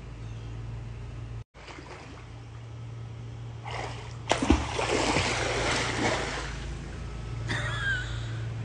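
Water splashing in a swimming pool as a swimmer kicks and goes under, loudest about four to five seconds in, over a steady low hum.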